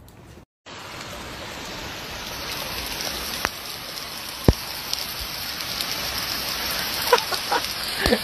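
Steady hiss of rain starting suddenly about half a second in and growing slowly louder, with two sharp clicks in the middle and a few short squeaky chirps near the end.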